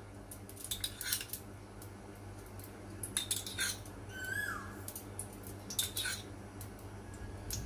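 Metal spoon clinking against a ceramic cup and a non-stick frying pan as oil is spooned into the pan: a few light clinks in small groups, over a steady low hum. A brief chirp sounds about four seconds in.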